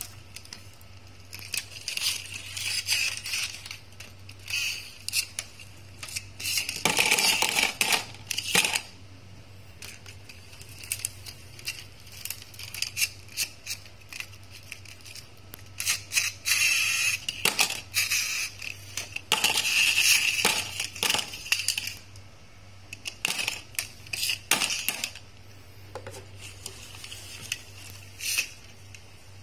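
Small toy cars clicking and clattering against each other and against a hard tabletop as they are handled and pushed along, in irregular bursts of sharp ticks with a few longer rattling stretches.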